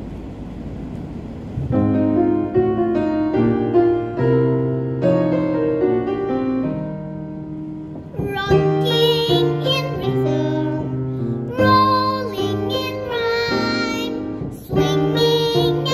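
Children's song: keyboard notes and bass start about two seconds in, and a sung melody joins about halfway through.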